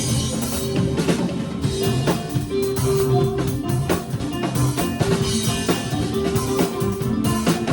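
Rock band playing live: drum kit with bass drum and snare, guitar, bass and keyboard.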